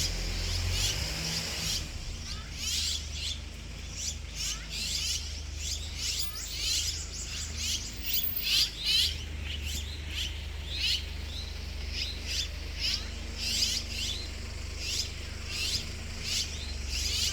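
Small birds chirping: many short, high, quick chirps repeating a few times a second, thickening after about two seconds, over a low steady rumble.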